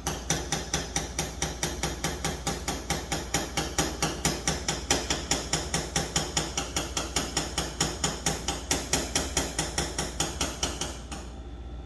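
Rapid, even hammer taps on a 2006 Toyota Corolla's body panel, about four to five a second, knocking down high spots in paintless dent repair. The tapping stops suddenly near the end.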